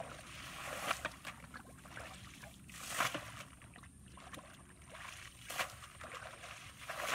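A plastic bucket scooping and tossing muddy water while bailing a flooded rice-field furrow. A splash comes about every two seconds, with trickling water in between.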